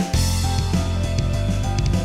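Instrumental backing music with a steady bass line and drum hits.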